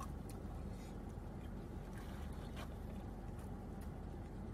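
Steady low rumble inside a car cabin, typical of the engine idling or the air conditioning running, with a few faint clicks from chewing.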